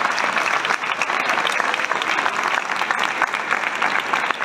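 A large crowd applauding: dense, continuous clapping that stays steady throughout.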